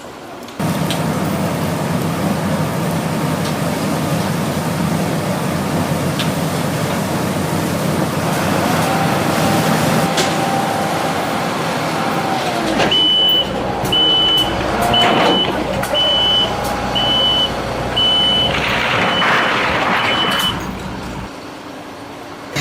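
Heavy vehicle engine running steadily. Past halfway its reversing alarm starts, high beeps about once a second for around seven seconds.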